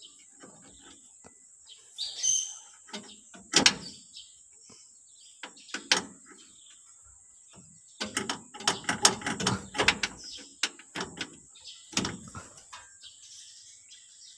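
Toyota Hilux parking brake cable end and its coiled spring being worked into a bracket by hand: scattered metal clicks and rattles, densest around eight to ten seconds in.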